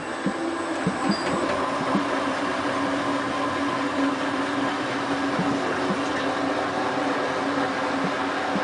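Hotpoint Ultima WT960 washing machine running with a steady motor hum and scattered low thumps as its drum turns a heavy load of dog bedding, which is slow to balance for the spin.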